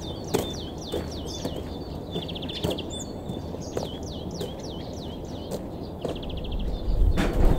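A songbird calling over and over in quick series of high, down-slurred notes, broken twice by short rapid trills, with scattered soft ticks. Near the end, a gust of wind rumbles on the microphone.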